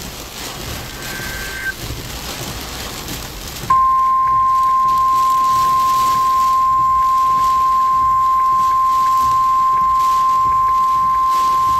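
Steady rain hiss, then about three and a half seconds in a NOAA Weather Radio warning alarm tone starts abruptly. It is a single loud steady beep at 1050 Hz that holds for about nine seconds and signals that a warning is being issued, here a flash flood warning.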